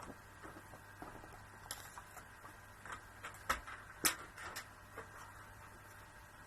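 Card being trimmed to size on a paper trimmer: a scatter of small clicks and taps as the paper is set against the guide and the blade is run, the sharpest click about four seconds in.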